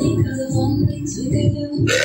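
Background music with a heavy low beat, starting abruptly; near the end it cuts to a different sound with steady held high tones.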